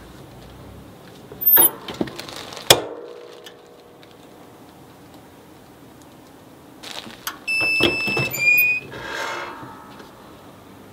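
A heat press being worked on a jersey nameset: a few clunks and a ringing metal clank in the first three seconds, then about eight seconds in a steady high tone followed by a short squeal.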